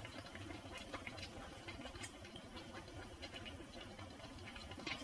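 Faint bubbling of a pot of pasta water boiling on a gas hob, with scattered small clicks and ticks.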